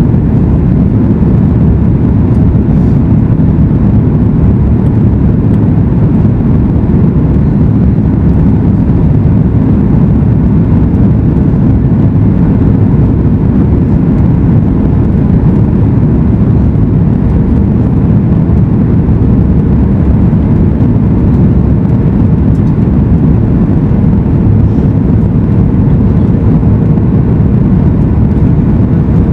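Cabin noise of a Boeing 737 MAX 8 airliner in flight: the steady, loud, deep rush of its CFM LEAP-1B engines and airflow. A faint steady hum joins about a third of the way in.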